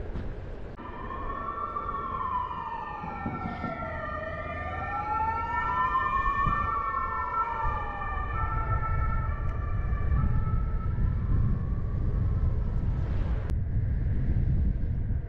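Emergency vehicle siren wailing, its pitch sweeping slowly up and down, over a low rumble. The siren cuts off suddenly near the end.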